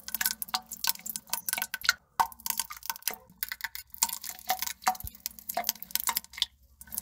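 Rapid, irregular drips and small plops falling into toilet-bowl water, several a second, with a couple of short pauses.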